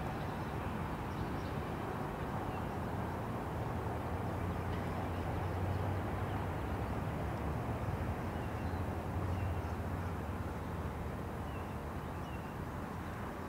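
Steady rumble of a long freight train's wheels on the rails as its last boxcars roll away, easing slightly near the end. Faint bird chirps over it.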